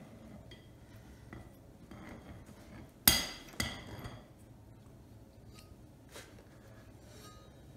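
Metal parts clanking as a generator rotor's cast cooling fan is handled: one sharp, ringing clank about three seconds in, a lighter one about half a second later, and a few faint clinks around them.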